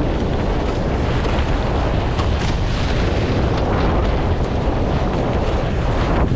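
Heavy wind buffeting the microphone, with water rushing and spraying off the hulls of a Nacra F18 catamaran under sail. A steady, loud rumble throughout.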